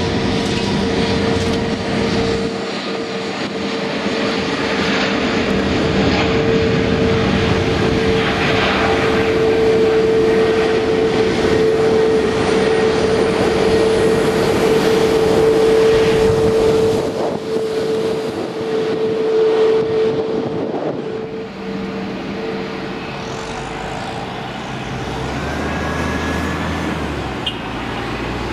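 An easyJet Airbus A320neo's CFM LEAP-1A turbofans at take-off power as it rolls down the runway and climbs away: a steady whining tone over a broad jet rumble, loudest around the middle. The whine fades about three-quarters of the way through, leaving a lower rumble.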